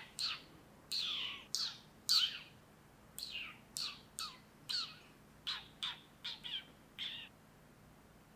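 A bird chirping: a quick series of short, sharply falling chirps, about two a second, that stops about seven seconds in.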